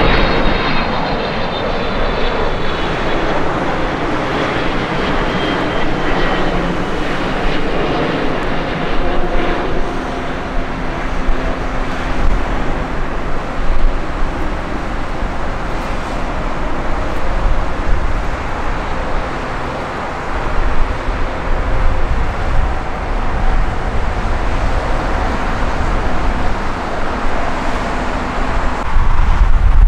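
Boeing 777F jet engines passing on a landing approach, their high whine dropping in pitch as the aircraft goes by, then a long steady jet rumble as it moves away down the runway. A sudden louder, deeper jet rumble sets in near the very end.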